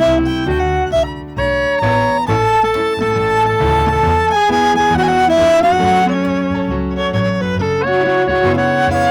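Live chamber quartet of violin, clarinet, double bass and piano playing an instrumental piece, with held melody notes over a moving bass line and a brief drop in loudness about a second in.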